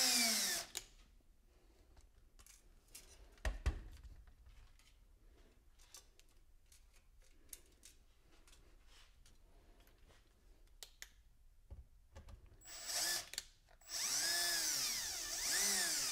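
Cordless drill driving screws into a wooden board to clamp copper-wire antenna whiskers. One run winds down just after the start. A single knock comes a few seconds in, with faint clicks. Near the end there are two short bursts, then a longer run, the motor speeding up and slowing as the trigger is worked.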